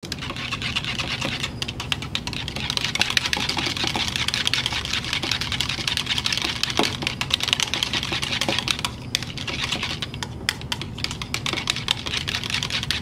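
Small wire whisk stirring soap batter in a plastic measuring jug: a fast, steady clicking and scraping of the wires against the jug's sides, working dry mica powder into the batter.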